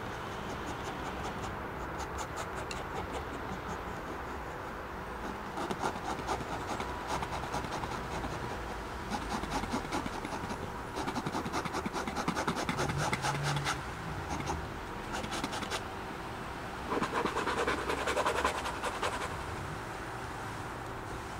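Palette knife scraping and spreading thick paint across a stretched canvas in several strokes of a second or two each, over a steady low rumble in the background.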